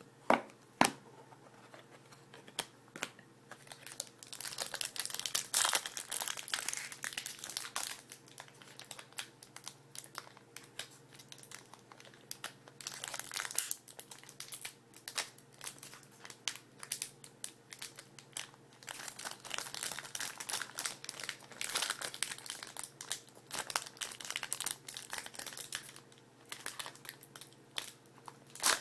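Hockey card pack wrappers being torn open and crumpled by hand, in several bouts of crinkling separated by short pauses, with small clicks as the cards are handled.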